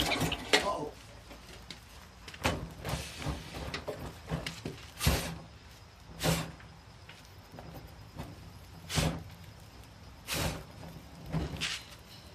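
Irregular handling noises: scrapes and knocks spaced a second or more apart, the loudest about five, six, nine and ten seconds in.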